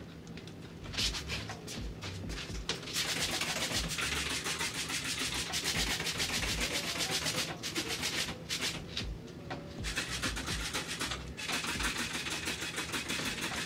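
Rapid scrubbing strokes against shower wall tile, rasping and continuous, with a few brief pauses.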